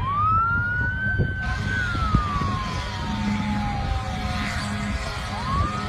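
Emergency vehicle siren wailing. Its pitch climbs quickly, holds briefly, then falls slowly over about four seconds before climbing again near the end, over a steady low rumble.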